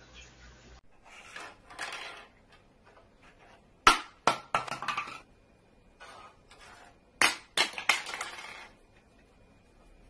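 Sharp knocks and clattering in two flurries, about four seconds in and again about seven seconds in, with softer rustling before the first.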